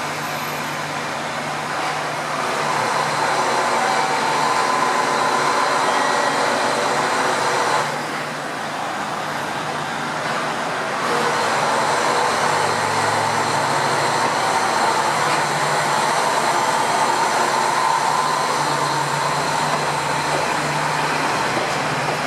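KiHa 47-series diesel railcar (KiHa 147) pulling away from the platform, its diesel engine running hard under load. The engine note drops back briefly about eight seconds in and picks up again about three seconds later as the railcar gathers speed past.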